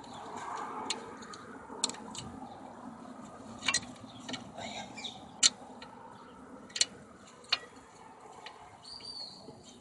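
Scattered sharp metallic clicks and taps, about five spread over several seconds, as front disc brake pads, their clips and the caliper are handled and fitted back into place.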